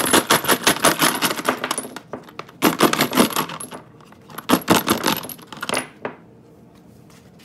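Live brass and nickel-plated cartridges rattling and clinking against one another inside a plastic water bottle as it is tipped and shaken to pour them out, in three rattling bursts, then stopping.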